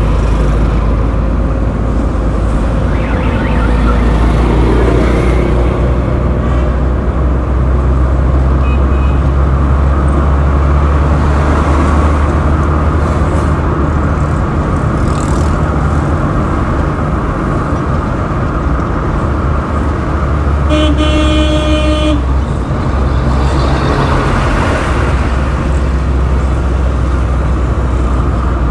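Road traffic: a steady rumble of vehicle engines and tyres. About two-thirds of the way through, a vehicle horn honks once for about a second and a half.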